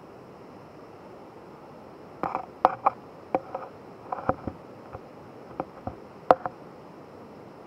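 Footsteps knocking on the loose wooden planks of a rope suspension bridge: about a dozen irregular knocks and clacks over four seconds, starting about two seconds in, one of the last being the loudest, over a steady hiss.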